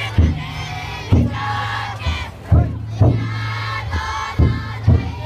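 Futon daiko float's big drum struck in pairs of heavy beats about half a second apart, a pair every second and a half or so, under the bearers' loud chant shouted in unison.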